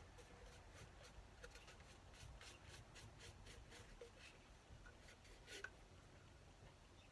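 Faint soft brushing of a paintbrush stroking paint onto a cardboard tube, with a few light handling sounds as the tube is turned.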